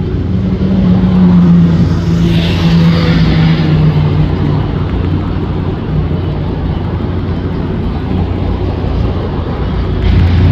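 Car engines running in street traffic: a low, steady drone whose pitch sinks slightly over the first few seconds, with a brief hissing rush about two seconds in.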